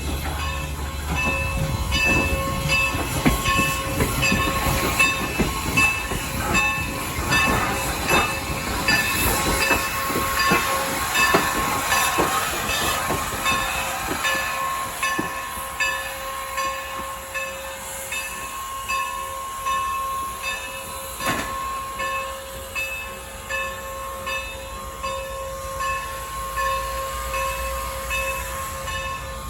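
Steam locomotive N&W #475, a 4-8-0, working slowly up against its train to couple: hissing steam and many short knocks in the first half, under a steady, evenly pulsing ringing tone, with one sharp clank about 21 seconds in.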